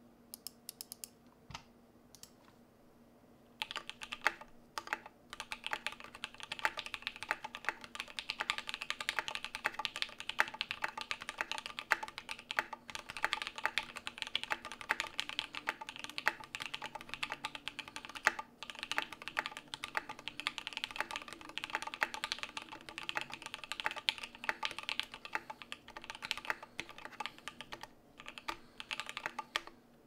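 Custom mechanical keyboard with lubed and filmed Alpaca linear switches, an aluminum plate and PBT keycaps, typed on fast and continuously; the steady typing begins about three and a half seconds in, after a few sharp isolated clicks.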